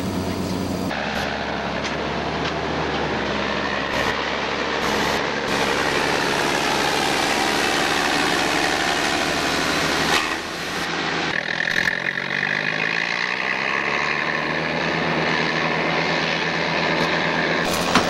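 A vehicle engine running steadily, with a sudden change in its sound about ten seconds in and a shifting pitch a little after.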